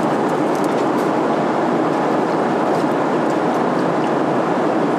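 Steady rushing cabin noise of a Boeing 777 airliner in cruise flight, the engines and airflow past the fuselage, with a few faint clicks.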